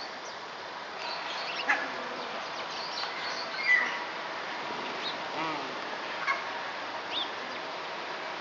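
Scattered short bird calls and chirps over a steady background hiss, with a few sharp brief sounds, the loudest a little under halfway through.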